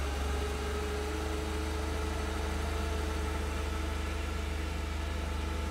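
Ford 2.5L LPG four-cylinder forklift engine, fitted with a balancer, idling steadily and evenly.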